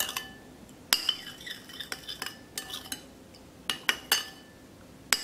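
Metal spoon stirring a liquid sauce in a ceramic bowl, clinking and scraping against its sides in irregular strokes, with the sharpest clinks about a second in and a quick run of them near four seconds.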